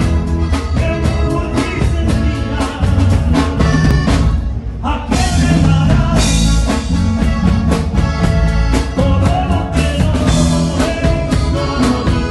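Live band music played loud through a PA with powered subwoofers: drum kit, electric guitar and bass with heavy low end, and a brief break about four seconds in before the band comes back in.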